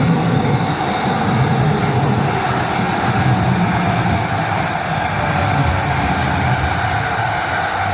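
JR electric commuter train passing over a level crossing, a steady, loud rumble of wheels and motors with no break, and a faint high whine partway through.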